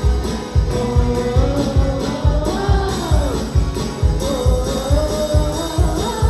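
Gospel song with singing voices over instrumental accompaniment and a steady drum beat.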